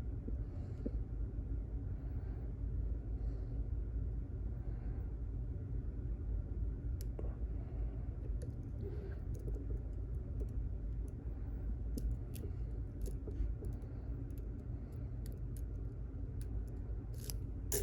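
Lock pick scraping and clicking against the pins inside a pin-tumbler lock as the pins are worked: faint scrapes at first, then scattered small metallic clicks from about seven seconds in, coming more often near the end, over a steady low hum.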